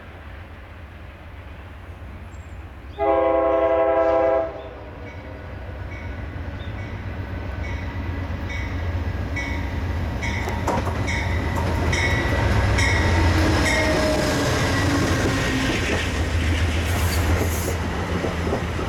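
NJ Transit P40DC diesel locomotive arriving: one horn blast of about a second and a half, starting about three seconds in. Then the diesel engine's low rumble and the train noise grow louder as it draws near and its coaches roll past, with a regular metallic ding about every three-quarters of a second.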